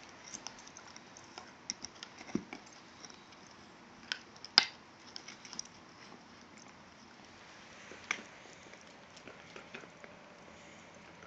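Two small dogs gnawing elk antlers: scattered clicks and scrapes of teeth on antler, with one sharp knock about four and a half seconds in.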